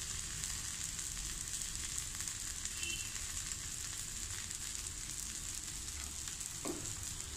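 Green gram dosa batter frying in sesame oil on a hot dosa griddle (tawa): a steady, even sizzle.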